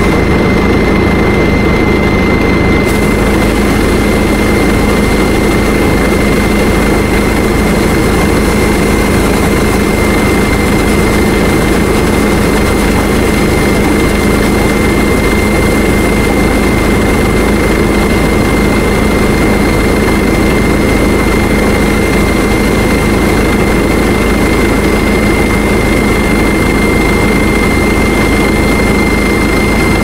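Rice combine harvester engine running steadily under load, with a constant high whine over a low, even drone.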